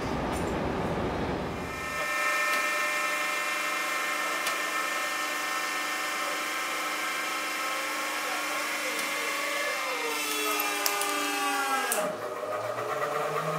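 Hydraulic press molding rubber tennis ball cores, its pump motor giving a steady whine while the mold halves clamp shut. The whine slides down in pitch over its last couple of seconds as the motor labours, then cuts off, after an opening couple of seconds of rumbling noise.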